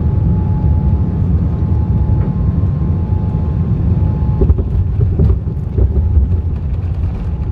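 Airliner cabin noise while rolling on the runway after landing: a loud, steady low rumble of engines and wheels, with a thin steady whine that stops about halfway through and a few bumps in the second half.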